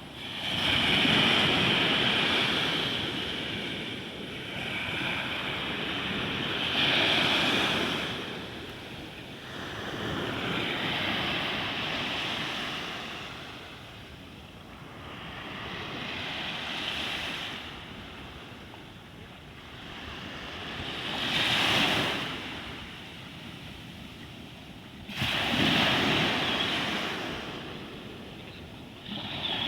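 Sea waves breaking and washing ashore, the surf swelling and falling back about every four to five seconds.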